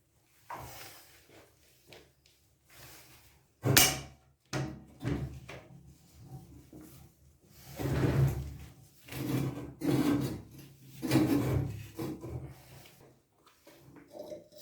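Irregular knocks and scraping from hand work on building materials: a sharp knock about four seconds in, then several rubbing, scraping strokes in the second half.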